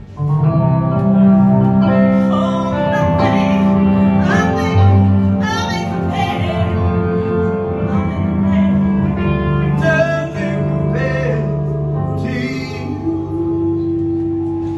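Live soul singing: a woman and a man singing together over held electric keyboard chords, the music starting suddenly right at the outset.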